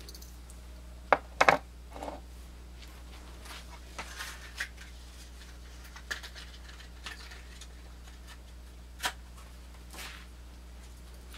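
Light clicks, taps and scrapes of small metal pocket knives being handled, with a few sharper knocks about a second and a half in and single taps later on.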